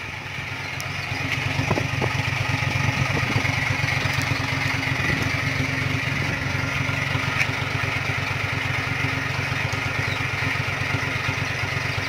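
Diesel SUV engine idling steadily, heard close to its tailpipe, with a few faint metal clicks from the bracket and bolts being handled.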